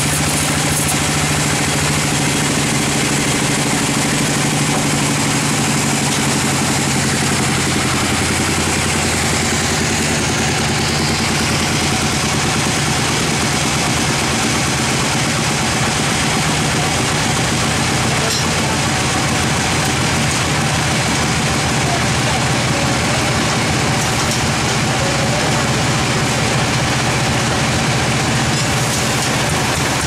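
Sawmill band saw running steadily while sawing a teak log: a constant low machine hum under a loud hiss.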